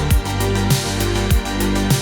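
Synthwave music: sustained synth bass and chords over a steady electronic beat, with a deep drum hit about every 0.6 seconds and crisp high percussion between.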